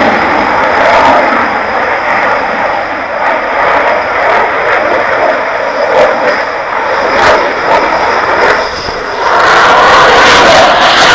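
Loud aircraft engine noise from an arriving aircraft, a steady rushing roar with a faint high whine. It eases somewhat mid-way and swells back to full loudness about nine seconds in.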